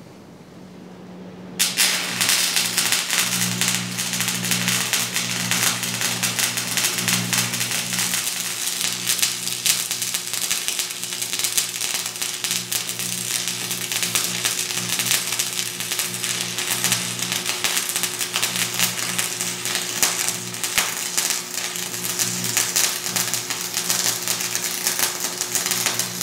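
Stick arc welding on a steel I-beam: the arc crackles densely and without break, starting suddenly about a second and a half in, over a low steady hum.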